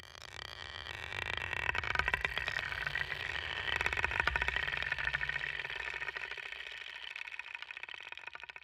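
A small mechanism running, with a rapid, dense clicking over a steady whine that swells in the middle and fades toward the end.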